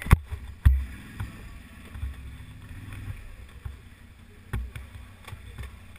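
Can-Am 800 ATV's V-twin engine running at low throttle as the quad creeps forward, with several sharp knocks, the two loudest within the first second.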